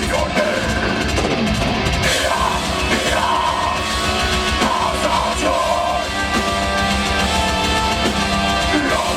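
Metal band playing live at full volume: distorted guitars and drum kit, with vocals over them.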